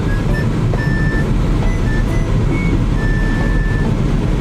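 Steady low road and engine rumble of a car driving at road speed, heard inside the car, with a few faint short high tones scattered over it.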